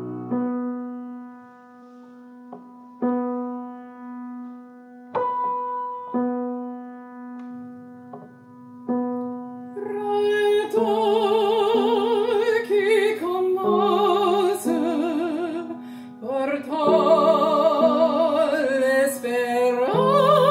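Piano introduction of single chords struck every second or two, each left to ring and fade; about halfway through a female opera singer comes in, singing an aria with a wide vibrato over the piano.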